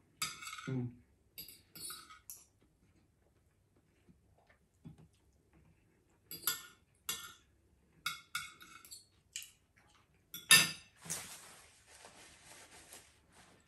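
Spoon and fork clinking and scraping against a ceramic plate in several short bursts, then a paper napkin rustling for a couple of seconds near the end.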